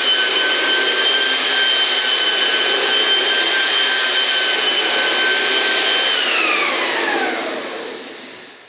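Yelmo floor polisher-vacuum's motor running with a steady high whine, then switched off about six seconds in, its pitch falling as it spins down.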